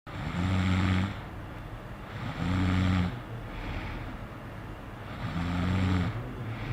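A sleeping person snoring: three snores, each lasting about a second and coming two to three seconds apart, with fainter breath noise between them.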